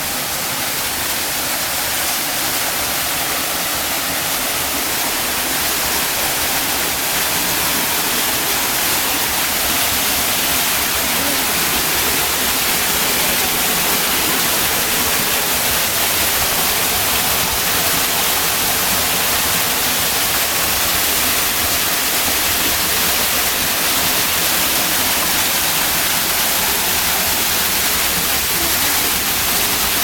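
Waterfall pouring down and splashing into a rock pool close by: a steady rushing hiss that grows a little louder over the first few seconds, then holds.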